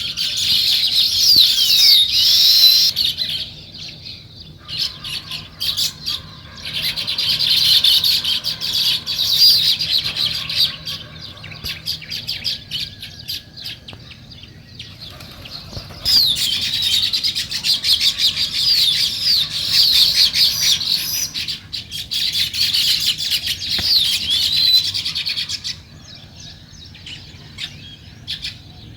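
A group of house sparrows chirping, many rapid overlapping chirps in loud bouts with quieter stretches between, the chatter dropping away near the end.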